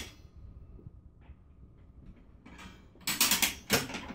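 Tilting top of a drawing desk being raised by hand, its metal tilt mechanism clicking: a faint click or two, then from just past halfway a quick run of loud clicks.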